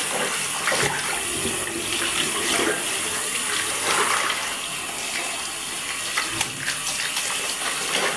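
Tap water running steadily into a sink while a microfiber mop pad is squeezed and rubbed by hand under the stream, with irregular splashes.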